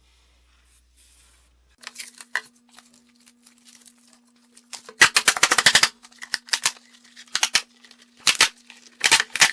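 Handling noises: a series of sharp clicks and knocks, with a dense rattling burst about five seconds in.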